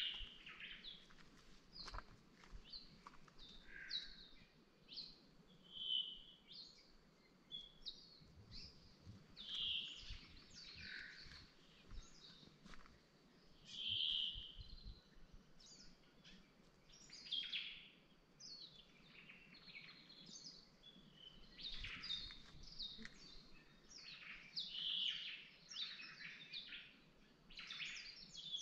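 Birds chirping and calling: many short, high chirps and whistles, several every second or two. The loudest is a clear whistle about fourteen seconds in.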